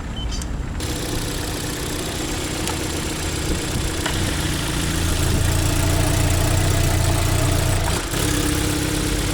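Car engine running at idle, its revs raised about five seconds in and dropping back to idle about three seconds later.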